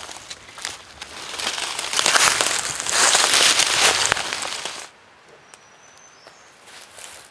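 Footsteps crunching and crackling through dry leaf litter and brush close by, loudest in the middle and cutting off abruptly about five seconds in. Afterwards the woods are quiet, with one short high bird chirp.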